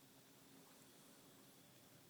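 Near silence: faint hiss and a low hum of background noise.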